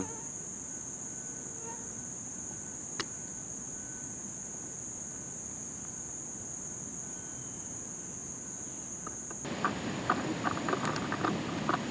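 A steady, high-pitched drone of insects calling in the woods. About nine and a half seconds in it gives way to irregular crunching of footsteps on a gravel track.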